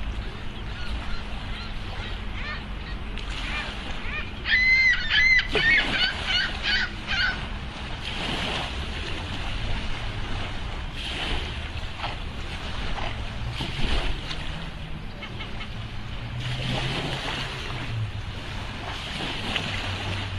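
A quick run of high, pitched animal calls, several in a row, about four to seven seconds in, over a steady wash of water noise and a low motor hum.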